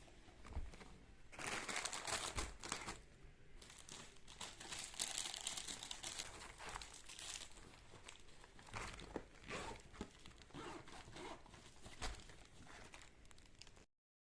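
Irregular crinkling and rustling with small crackles, coming in uneven spells, then cutting off abruptly near the end.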